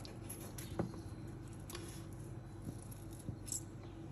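Quiet room ambience with a steady low hum and a few faint, short clicks or taps.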